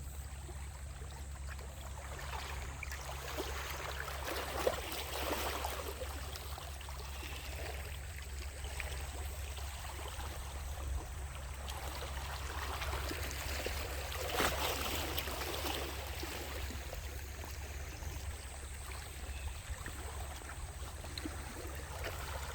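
Sea waves washing and splashing against a rocky shore, swelling and ebbing, with a steady low rumble beneath.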